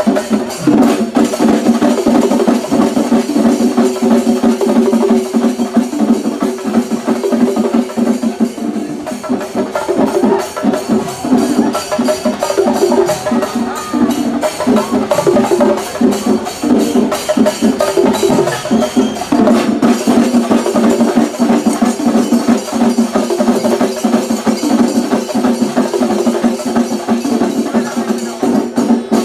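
Loud, fast festival drumming: drums struck with sticks in a dense, unbroken run of strokes, over a steady held tone.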